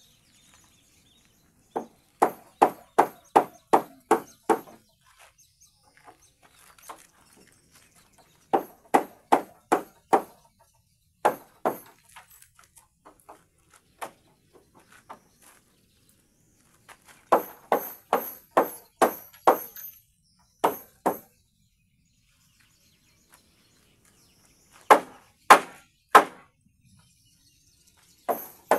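Hammer driving nails into timber: runs of sharp blows, about three a second, several strikes at a time with pauses in between.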